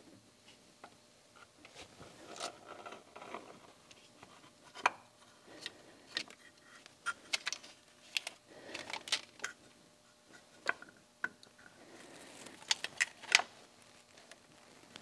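Light metal clicks and scraping as a distributor is lowered and worked into its seat in a small-block Chevy V8. The clicks are scattered and uneven, with sharper ones about five seconds in and near the end.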